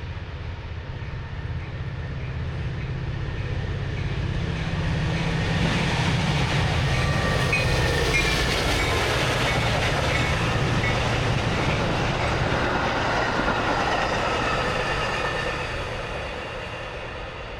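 A train passing on the rails: its rumble builds over the first few seconds, stays loud for about eight seconds, then fades away near the end, with faint high wheel tones in the loudest part.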